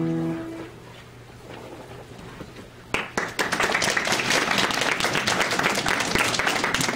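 The last chord of a piece on a Yamaha grand piano rings and dies away, and after a pause of about two seconds an audience breaks into applause that keeps going.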